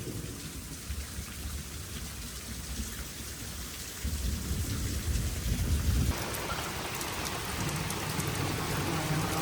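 Heavy rain falling in a thunderstorm, with low rolling thunder that swells about four seconds in. About six seconds in the thunder fades and the rain hiss grows louder.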